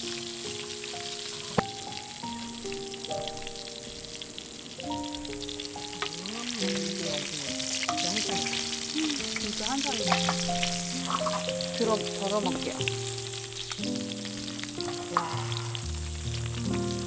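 Food frying and sizzling on a hot surface, under background music with a melody of held notes. A sharp tap about a second and a half in.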